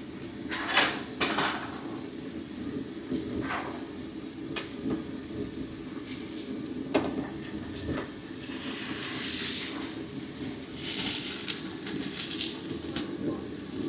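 Steady background hiss and hum with scattered knocks and clatter of kitchenware. Bursts of louder hissing, like steam or sizzling, come a little after halfway and again near the end.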